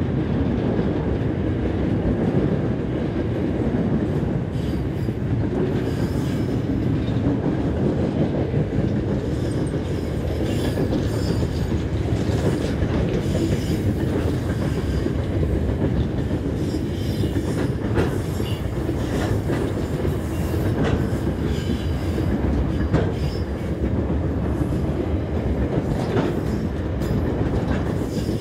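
Freight train rolling steadily past, a continuous rumble of wheels on rail with scattered clacks over the rail joints and faint wheel squeal.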